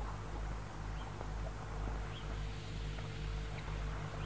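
Steady low hum and hiss from an old film soundtrack, with a few faint high chirps.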